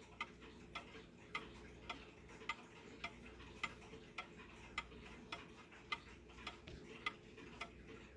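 Jauch mechanical clock movement ticking faintly and evenly, its escapement beating just under two ticks a second.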